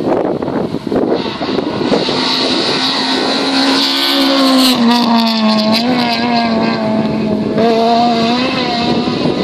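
Rally car engine running at high revs over a steady rushing noise. The pitch holds fairly even, with a dip about halfway through.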